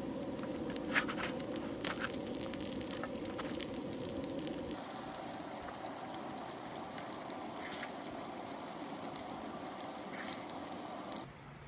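Food sizzling and crackling on a skottel griddle, with sharp pops in the first few seconds. The sizzle changes abruptly to a softer, steadier hiss about five seconds in, and drops lower just before the end.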